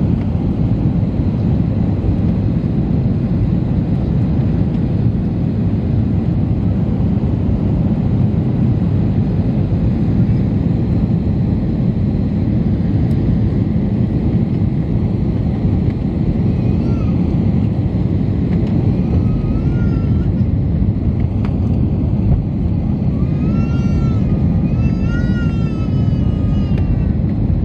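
Steady low rumble of jet engine and airflow noise inside the cabin of an Airbus A320neo airliner descending on approach. In the second half a high-pitched voice, such as a small child's, calls out a few times with wavering pitch.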